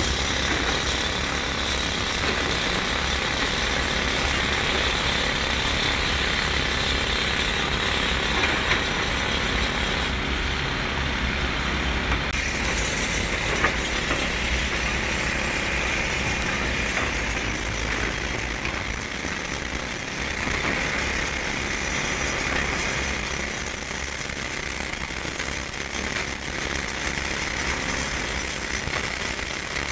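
Tracked excavators' diesel engines and hydraulic machinery running steadily on a demolition site, a continuous rough mechanical noise with a deep rumble.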